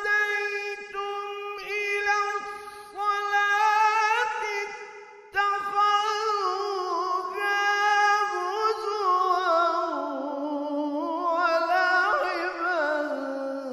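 A man's voice in melodic Quran recitation (tajwid), holding long ornamented notes with a wavering pitch. There is a brief break about five seconds in, and the line falls lower in pitch over the second half.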